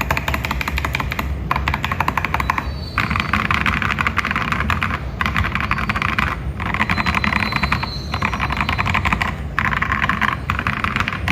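Fast typing on a mechanical keyboard fitted with unlubricated LEOBOG Nimbus linear switches and JSA-profile keycaps: dense runs of key strikes with brief pauses every few seconds. The sound is fairly low-pitched.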